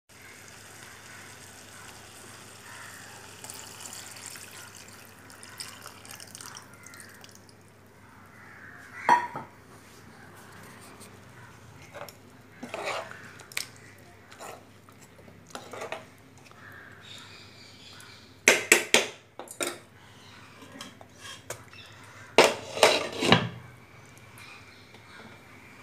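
Metal spoon stirring, scraping and clinking in a cooking pan of curry over a faint liquid background. There are sharp metal clatters, the loudest a cluster about two-thirds of the way through and another near the end, the last as a glass lid is set on the pan.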